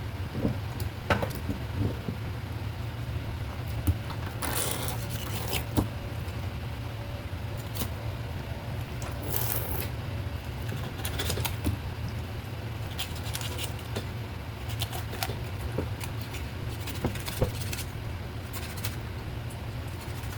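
Scattered clicks, knocks and scrapes of things being handled, over a steady low hum, with two brief hissing rushes about four and a half and nine and a half seconds in.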